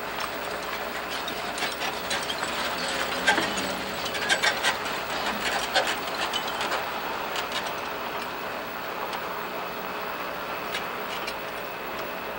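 A flatbed boom truck drives past close by, its body and crane boom rattling and clanking in a run of sharp knocks, loudest around the middle, over a steady hum.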